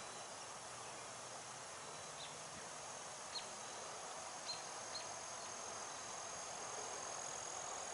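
Faint steady hum of many honey bees flying in and out of a hive entrance during heavy foraging traffic. A thin high tone runs through it, and a few tiny short chirps come about two to five seconds in.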